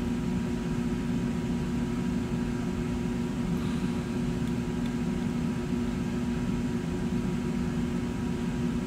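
Steady mechanical room hum: a low drone with a faint higher steady tone, unchanging throughout, like an air conditioner or similar appliance running. The thread wraps of the fly tying make no sound that stands out above it.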